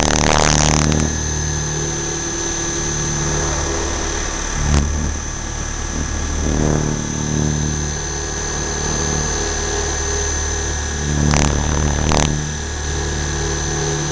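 Align T-Rex 600 RC helicopter heard from a camera on board: the steady drone of the rotor and drivetrain with a constant high whine, its low tones shifting as the model manoeuvres, broken by a few short rushes of air noise.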